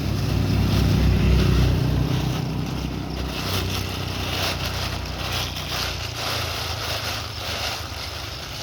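An engine running with a low, pulsing drone that dies away about six seconds in, over a steady hiss.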